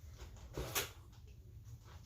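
Faint handling and eating noises at a crab and shrimp meal, with one short sharp crack about three-quarters of a second in.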